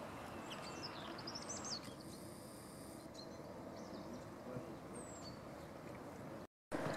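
Outdoor ambience: a steady hiss of background noise with a few short bird chirps. The sound cuts out for a moment near the end.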